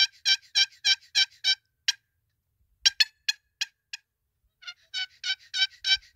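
Series of turkey yelps, about three a second, raspy and evenly spaced; the series breaks off about two seconds in, a few scattered yelps follow, and a steady run resumes about five seconds in.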